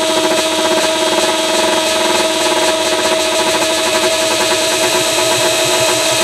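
Tower crane's slewing drive running as the crane turns: a steady whine over a fast mechanical rattle.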